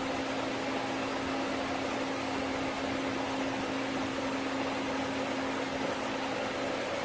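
Doosan PUMA 5100XLM CNC turn-mill running while machining a large screw: a steady machine hum over an even hiss.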